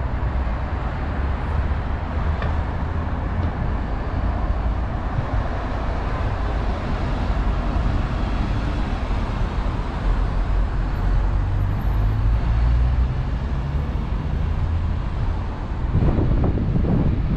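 A city bus driving past close by, its running motor and tyres a low rumble over steady street traffic noise.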